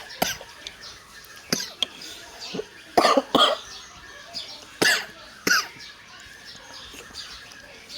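A person slurping noodle soup loudly in short, sharp pulls, about eight in the first six seconds, the loudest coming in pairs around the middle.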